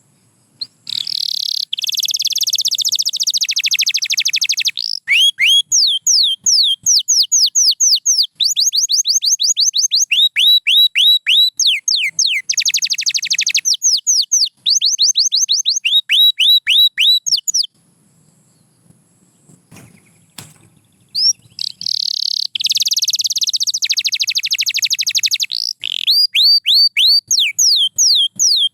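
Canary singing: a long song of rapid buzzy trills and runs of quickly repeated falling chirps, broken by a pause of about three seconds past the middle before the song starts again.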